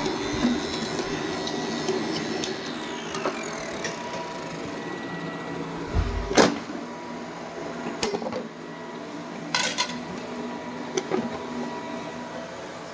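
Robot vacuum cleaner running with a steady motorised whir, a falling whine a few seconds in, and a few sharp knocks later on.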